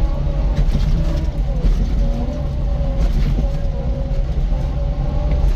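A vehicle driving over a badly washboarded dirt road: a heavy, juddering low rumble from the corrugations, with a steady whine from the running vehicle.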